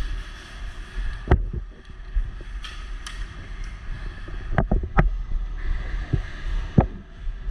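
Airsoft guns firing in scattered sharp cracks: a single shot about a second and a half in, a quick string of about four a little past halfway, and two more near the end, over a steady low rumble and hiss.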